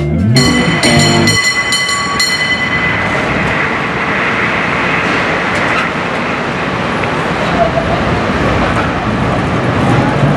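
A cable car bell struck about half a dozen times in quick succession, its high ringing tones fading out by about three seconds in. After that comes a steady noisy rumble.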